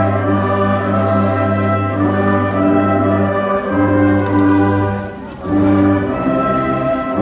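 Orchestral music with brass holding long, slowly changing chords, briefly falling away about five seconds in before the next chord.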